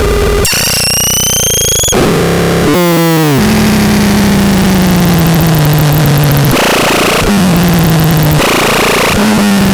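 Absurdon X1 Bax Box noise synth making harsh, distorted electronic noise. About three seconds in, a cluster of tones sweeps downward. Then a low buzzing drone sets in, drops a step in pitch, and cuts out and comes back twice.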